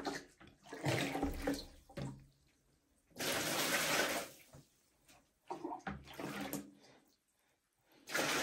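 Water scooped with a plastic jug from a plastic basin and poured back in, splashing in separate bursts: a short one about a second in, a longer pour in the middle and a shorter one after it.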